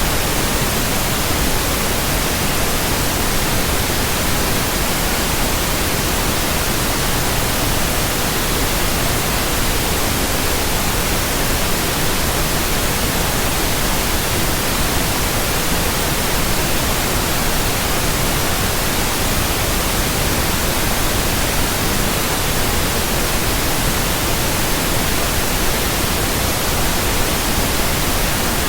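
Steady synthetic white noise: an even, unchanging hiss across the whole range of pitch.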